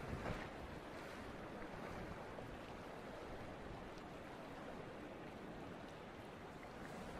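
Choppy sea washing with wind: a steady, even rush with no distinct events.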